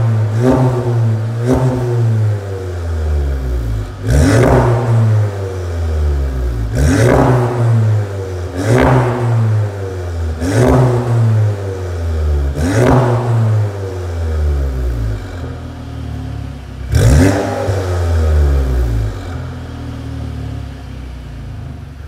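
Volkswagen Golf MK7.5 GTI's turbocharged 2.0-litre four-cylinder, heard through an ARMYTRIX valve-controlled aftermarket exhaust, revved in about eight sharp throttle blips while standing. Each blip falls back toward idle, and the engine settles to an idle over the last few seconds.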